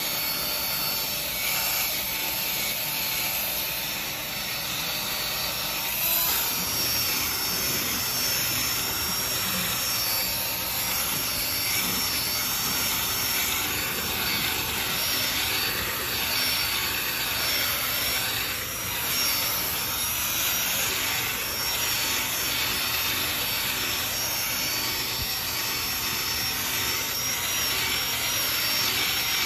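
Cordless drill spinning a round scrub brush against a chair's fabric upholstery: the drill motor running steadily while the bristles scrub over the fabric.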